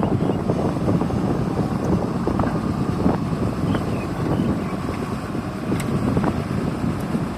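Hyundai 140W wheeled excavator's diesel engine running steadily, a dense low rumble with a few faint clicks, wind buffeting the microphone.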